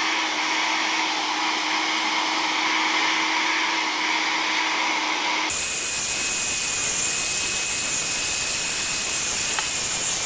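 Handheld hair dryer blowing steadily, with a low motor hum. About halfway through the sound changes abruptly to a brighter, harsher rush of air with a thin high whine.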